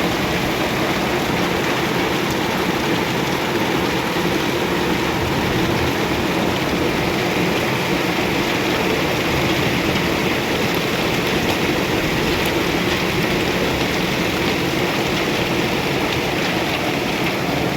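Heavy rain pouring down steadily, a dense unbroken rush of noise.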